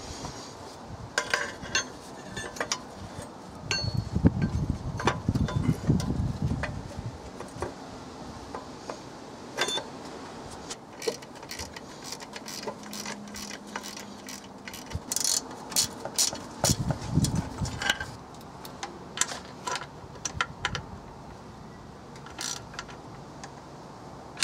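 Hand tools and metal parts clinking and knocking as a hydraulic clutch slave cylinder and clutch fork are fitted and bolted up: scattered sharp clicks and taps, with heavier rumbling knocks about four to seven seconds in and again around seventeen seconds.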